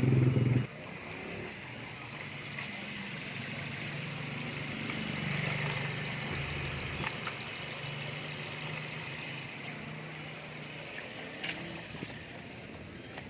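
A vehicle's engine and road noise while driving, a steady low hum that swells slightly midway. A louder low sound cuts off within the first second.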